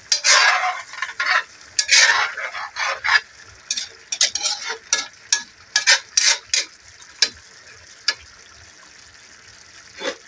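A metal utensil stirring and scraping through a thick stew in a metal wok: a quick run of scraping strokes for about seven seconds, then a pause and one more stroke near the end.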